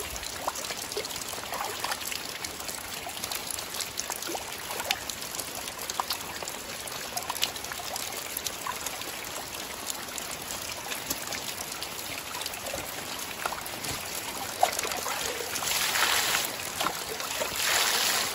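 Water trickling and dripping steadily, with scattered single drops, then two short louder rushes of pouring water near the end.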